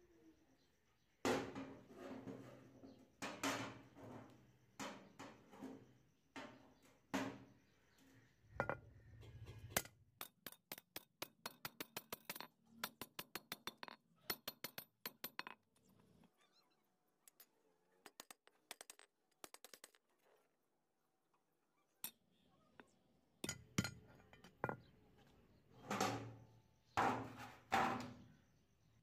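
Rusty steel hacksaw frame and parts clinking and clanking against hard surfaces as they are handled and set down, then a hand wire brush scrubbing the frame in quick, even strokes, about five a second, before more loud clanks near the end as the frame is laid down.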